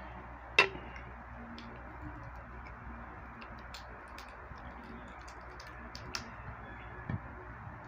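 Scattered small clicks and cracks of cooked crab shell and fried fish being picked apart by hand over plates, with a sharper crack about half a second in and a dull thud near the end, over a steady low hiss.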